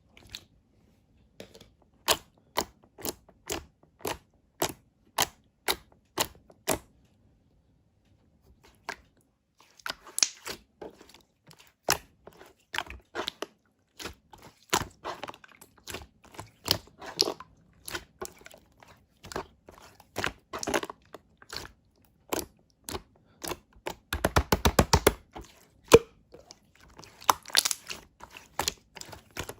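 Red slime being played with by hand: sharp clicking pops about one a second at first, then denser crackling, squishy crunches, with a quick rapid run of clicks about three-quarters of the way through.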